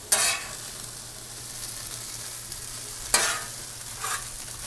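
Spam, ramen noodles and mixed vegetables sizzling steadily on a hot steel Blackstone flat-top griddle. A metal spatula scrapes and tosses the food across the griddle three times: at the start, about three seconds in, and more lightly a second later.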